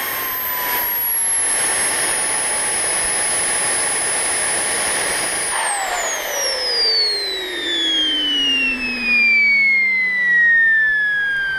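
The on-board engine of a Tornado model aircraft winding down: a high steady whine until about halfway through, then falling steadily in pitch as it spools down.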